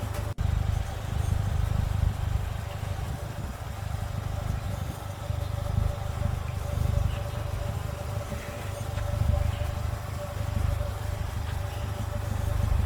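Polaris Slingshot three-wheeler on the move: a steady, low, uneven rumble of engine and road noise.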